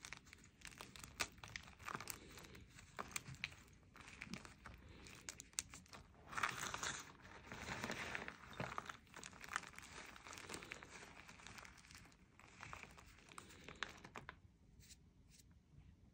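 Hands crushing and squeezing fresh Spri gym chalk blocks in a plastic tub: irregular soft crunching and crumbling of chalk pieces into powder. The sounds thin out to a few faint crackles about two seconds before the end.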